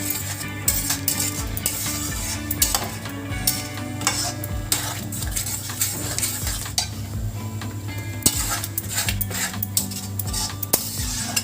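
Metal spoon stirring and scraping in a cooking pan of chickpea curry, with irregular clinks and scrapes over a steady low hum.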